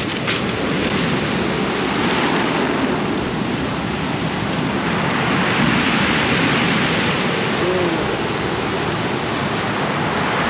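Ocean surf washing onto the beach at high tide: a steady hiss of breaking waves that swells a little through the middle.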